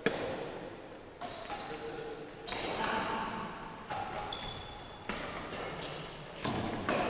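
Badminton rally: rackets striking the shuttlecock back and forth, a sharp hit about every second, each one ringing out in the hall's echo.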